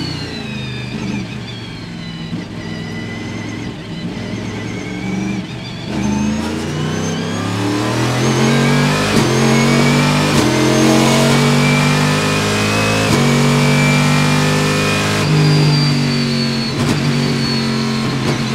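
Panoz Esperante GTR-1's 6-litre V8 racing engine heard from inside the cockpit: quieter and lower for the first six seconds, then accelerating hard, its pitch climbing and dropping at three upshifts.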